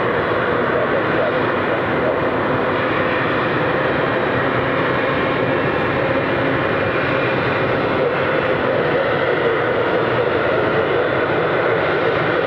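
Boeing 777-300ER's twin GE90 turbofan engines running at taxi power as the airliner rolls slowly past: a steady jet rumble with a held whine.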